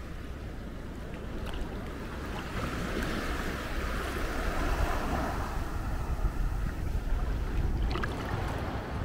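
Small waves washing onto the shore, the surf rising to a swell in the middle and ebbing again, with a low wind rumble on the microphone.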